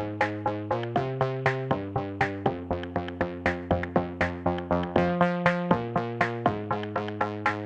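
Electronic background music: synthesizer chords over a drum-machine beat of about four strokes a second.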